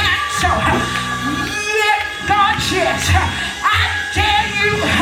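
Church music: a voice singing over held keyboard or organ chords.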